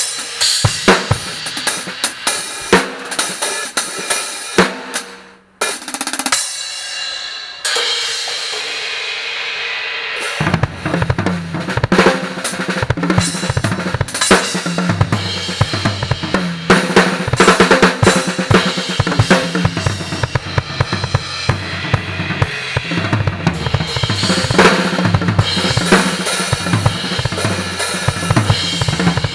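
Drum kit with Anatolian cymbals played solo: kick, snare, hi-hat and cymbal strikes. There is a brief break about five seconds in, then a few seconds of cymbal wash, and from about ten seconds in a busy groove with steady bass drum under ringing cymbals.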